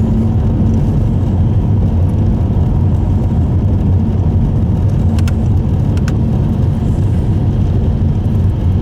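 Subaru Impreza Sport driving at steady speed, heard inside the cabin: a low, even drone of engine and tyres on the road. Two faint clicks about halfway through.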